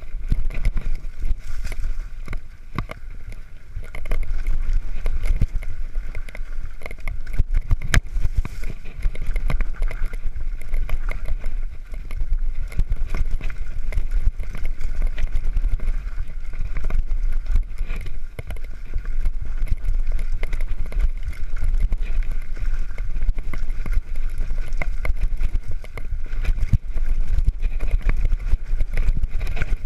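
Specialized Enduro Comp 29 mountain bike riding fast down a rough dirt trail: a steady low rumble of tyres and air rush on the camera mic, with many sharp knocks and rattles as the bike hits roots and rocks.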